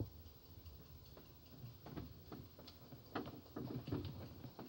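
Faint, irregular clicks and knocks, more of them and louder in the second half, from movement and handling inside the cockpit of a parked aircraft with its engine off.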